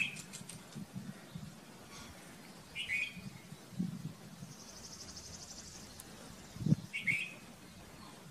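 Red-vented bulbul calling: three short chirped phrases a few seconds apart, near the start, about three seconds in, and about seven seconds in. Low thumps come near four seconds and just before the last call, the one before the last call the loudest.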